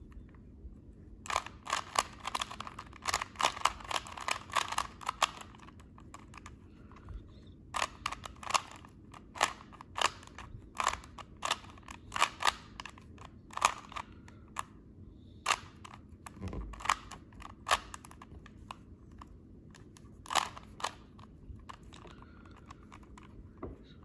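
A plastic Rubik's cube being turned by hand: its layers click and clack in quick runs of turns, broken by short pauses. A low thud comes about two-thirds of the way through.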